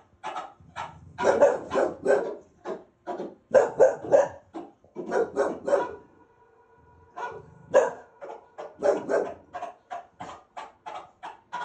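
Dog barking repeatedly, several short barks a second, broken about halfway through by a second-long steady tone before the barking picks up again.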